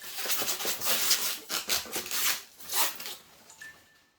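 Packaging rustling and rubbing as the coffee machine is unwrapped and handled: a run of quick scraping, crinkling strokes that die away near the end.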